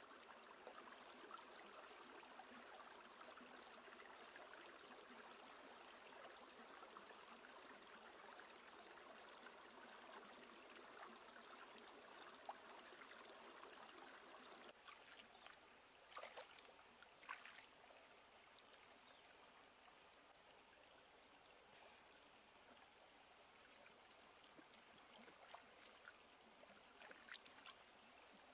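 Faint, steady babble of a shallow stream running over rocks, with a few short splashes of hands washing vegetables in the water about halfway through and again near the end.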